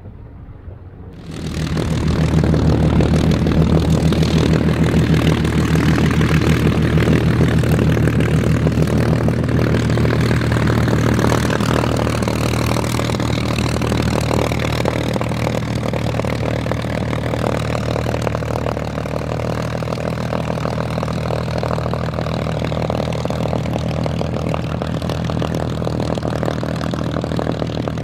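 Rolls-Royce Griffon 37-litre V12 of a Supermarine Spitfire Mk.XVIIIe running at low power as the fighter taxis, a deep, steady engine rumble with its propeller. It is faint for about the first second, then jumps to full loudness as the aircraft is close by.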